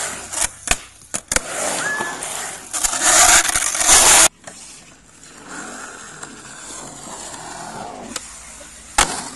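Skateboard wheels rolling over a concrete skate bowl, with several sharp clacks of the board against the concrete in the first second or so. The rolling cuts off suddenly about four seconds in and gives way to quieter rolling, with one more clack near the end.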